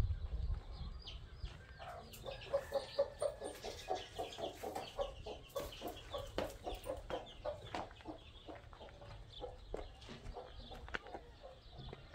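Chickens clucking in a rapid run of short notes, with scattered light clicks.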